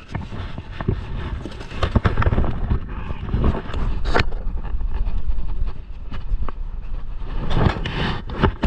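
Wind buffeting the microphone on a small open boat at sea, a rough steady rumble with scattered knocks and clicks from handling of the rod and gear.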